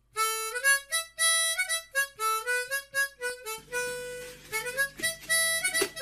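Intro music: a lead instrument plays a melody of short separate notes, and a low held accompaniment joins about halfway through.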